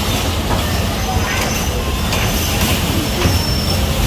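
Bumper cars running on the ride's floor: a steady rumble and rattle of the moving cars, with a few faint knocks.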